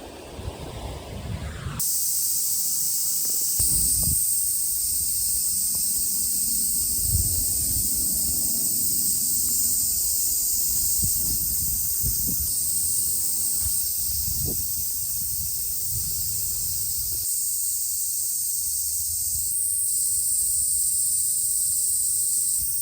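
Insects buzzing in a steady, high-pitched chorus that starts about two seconds in, over uneven low wind rumble on the microphone.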